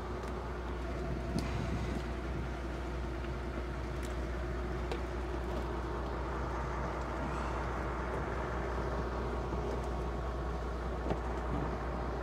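Fishing boat's diesel engine running with a steady low drone, with a few light knocks from the deck.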